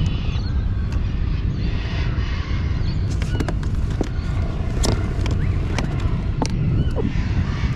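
Wind buffeting the microphone in a steady low rumble. From about three seconds in, a handful of sharp clicks and knocks come from fishing gear being handled on a kayak.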